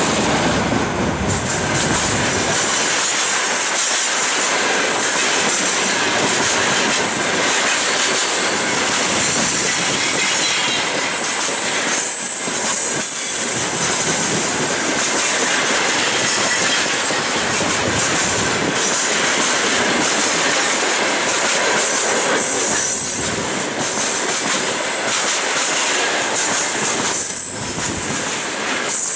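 Freight train wagons, a container flat car and then open gondola cars, rolling past at close range: a steady, loud rumble and clatter of steel wheels on rail, with a few brief high-pitched wheel squeals.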